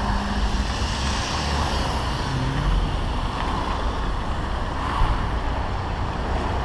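Steady street traffic, with cars, minibuses and a city bus driving past, their engines and tyres running together.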